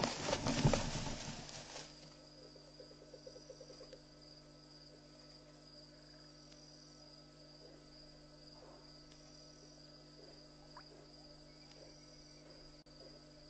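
A burst of loud, noisy scuffling close to the microphone dies away about two seconds in. These are the odd sounds of something being caught, which the uploader suspects is a green-backed heron catching prey in the water. Then crickets chirp steadily in the night.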